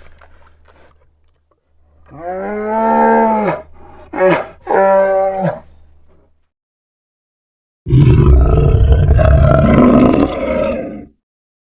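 An animal call that rises and then falls in pitch, followed by two shorter calls. After a pause comes a loud, rough roar of about three seconds from a large animal.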